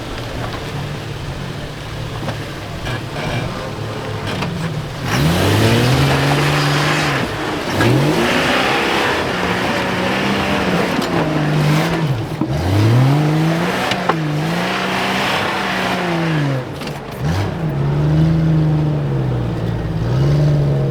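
Car engine running steadily, then revving up and down over and over, its pitch climbing and falling every second or two from about five seconds in.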